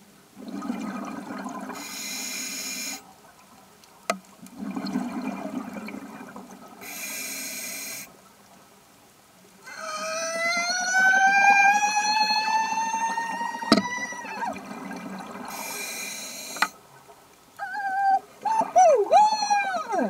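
Scuba regulator breathing: three slow cycles of exhaled bubbles rumbling out, each followed by a short hiss of inhaled air through the regulator. During the third exhale a long tone with overtones rises steadily for about four seconds, and near the end several short tones swoop down and up.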